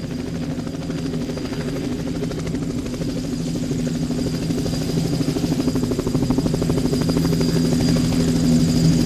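Steady motor hum with a fast flutter, slowly getting louder.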